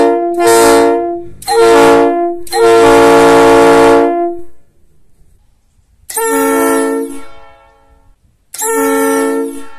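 Three-chime Nathan Airchime train air horn sounding its chord in loud blasts: three short blasts and then a longer one of nearly two seconds, then after a pause two more blasts of about a second each.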